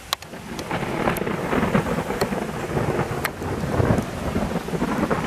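Heavy rain falling, a dense steady hiss with sharp drop ticks here and there and a low rumble underneath that swells about four seconds in.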